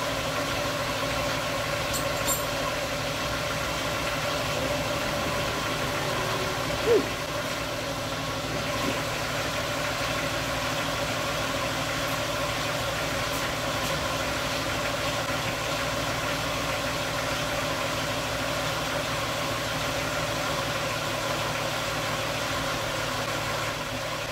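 1996 Ford Mustang engine idling steadily while it warms up after the cooling system has been bled. A brief sharp chirp cuts in about seven seconds in.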